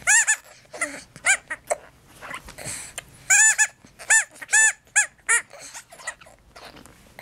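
Sophie la girafe natural-rubber teether squeaking as it is squeezed and chewed: a dozen or so short squeaks, each rising and falling in pitch, coming in clusters with the busiest run in the middle.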